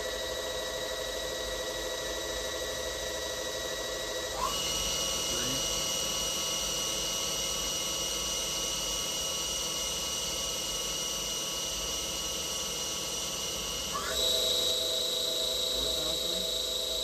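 Hardinge GX480 vertical machining center's spindle running with a steady electric whine, holding a tool but not cutting. Its pitch jumps to a new steady note twice, about four seconds in and again about three seconds before the end, as the spindle changes speed.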